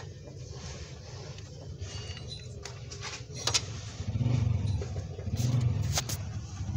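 Low steady rumble of a running vehicle engine, growing louder twice in the second half, with a few light clicks.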